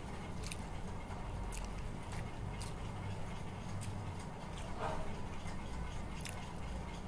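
Someone eating noodles, with soft chewing and small clicks over a steady low hum. A short squeak about five seconds in.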